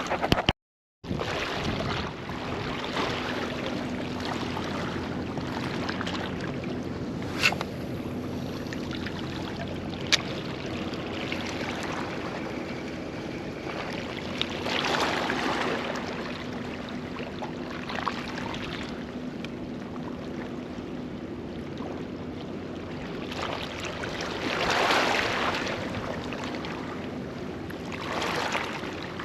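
Water lapping and washing around a small boat, a steady wash that swells now and then, with two sharp clicks a few seconds apart.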